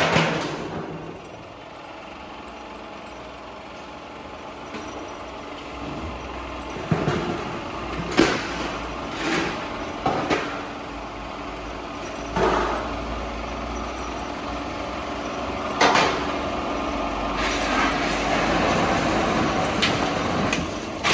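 Oil-drum cutting machine running steadily, with several sharp metal clanks and bangs at irregular intervals.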